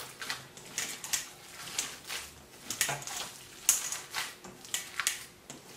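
Hands kneading and squishing a mash of potato, shredded chicken and cheese in a stainless steel bowl: irregular soft squelches and light knocks against the bowl, about two a second.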